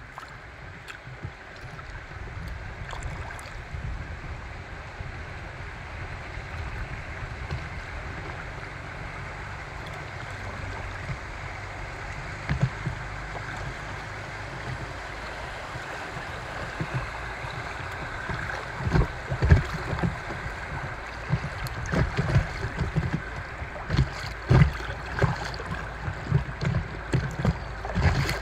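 Fast river current rushing and rippling around an inflatable kayak. In the second half, irregular low thuds and buffeting come more and more often.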